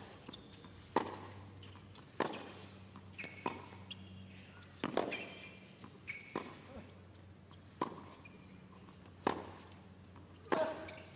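Tennis rackets striking the ball in a baseline rally on a hard court, about eight crisp shots roughly one every second and a half, with fainter ball bounces between them.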